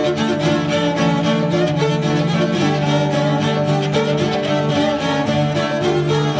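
Background music: held string chords, the notes changing every second or two.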